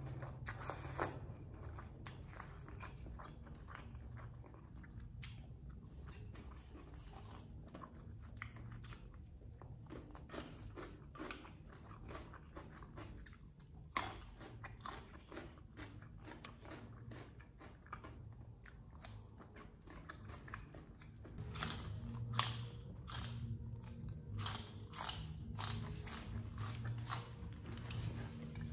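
Close-miked ASMR eating: wet chewing and crunching of spicy papaya salad with glass noodles and raw vegetables, a steady run of crisp clicks and crackles that grows louder and busier over the last third.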